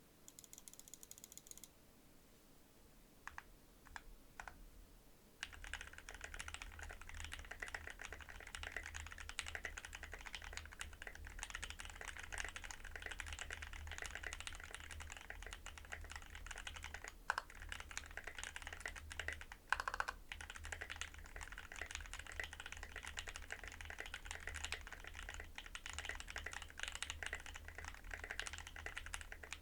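Typing on an Anne Pro 2 60% mechanical keyboard with a custom-fitted copper plate, lubed Halu-Halo switches and ABS doubleshot keycaps. A few scattered keypresses come first, then steady fast typing sets in about five seconds in, with a couple of heavier strikes along the way.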